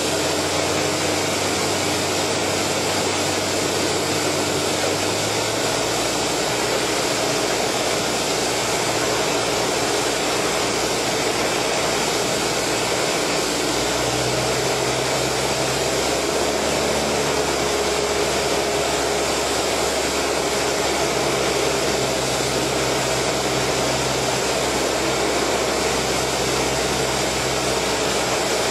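Cabin noise of a Cessna 172 on final approach: the piston engine and propeller drone steadily under a rush of wind. The engine note shifts slightly about five seconds in and again about halfway through.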